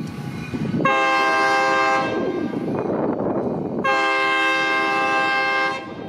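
Air horn of an EMD SD40 diesel locomotive sounding for a road crossing: a blast of about a second, then a longer blast of about two seconds, with the rumble of the train between them.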